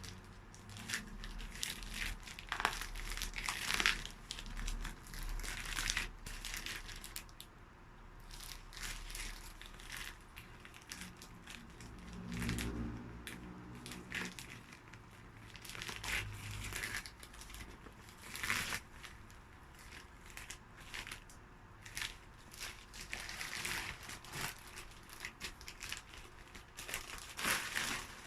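Shipping parcel packaging being torn open and crumpled by hand: irregular crinkling and tearing rustles that come and go throughout.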